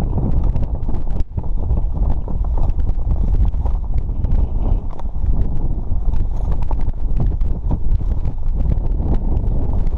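Strong wind buffeting the microphone in a loud, constant low rumble, with many quick irregular clicks and knocks over it.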